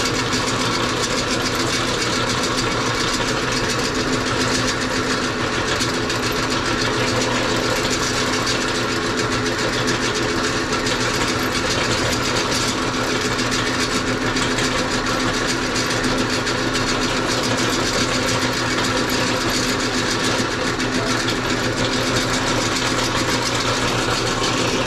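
Electric meat grinder running steadily with a constant motor hum while grinding raw pork.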